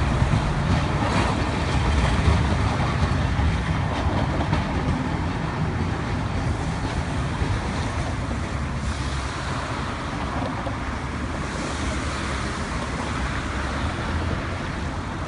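Tosaden streetcar running past over its tracks in the first few seconds, over steady street traffic from cars and taxis, which carries on as the tram moves off.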